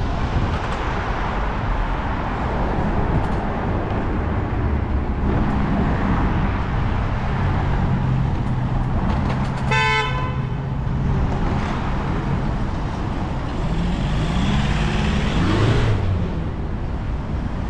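City street traffic: car engines running and tyres on the road, with one short car horn toot about ten seconds in. Near the end an engine note rises as a vehicle pulls away.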